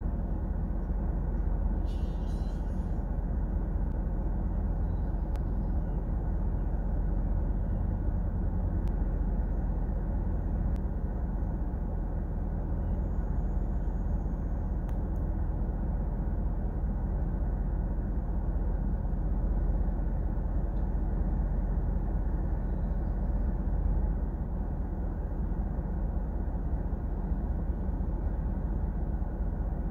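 Steady low rumble of an idling vehicle engine, heard from inside the cab.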